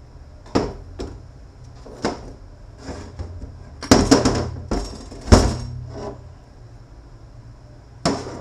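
Metal parts of a BorgWarner 1356 transfer case clanking and knocking as the planetary gear set is worked out of the case: a scattered run of sharp knocks, the loudest cluster about four seconds in and another sharp one just after five seconds.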